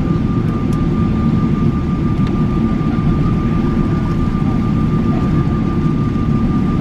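Airliner cabin noise heard from inside the cabin: a steady low rumble of the jet engines and air, with a thin steady whine above it.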